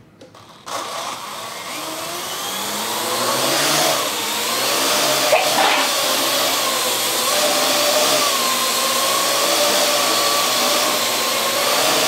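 Parrot AR.Drone quadcopter's four motors and propellers spinning up about a second in, rising in pitch as it lifts off, then a steady whirring buzz as it hovers, the pitch wavering slightly.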